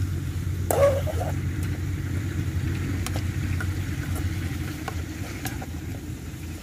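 A steady low drone like an idling engine, with a few faint clicks and a brief voice-like sound about a second in.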